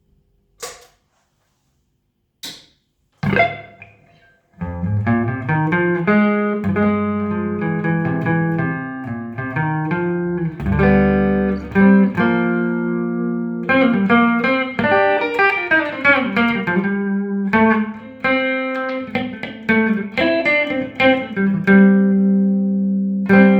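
Electric guitar with humbucker pickups played through a Trace Elliot Trident valve combo amp with 6L6 power tubes, with no effects. Two sharp clicks come first, then a chord rings out and dies away, and from about four seconds in, notes and chords are played without a break.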